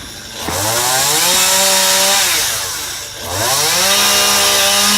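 Two-stroke chainsaw revved up to full speed and held, then dropping back briefly about three seconds in before revving up again.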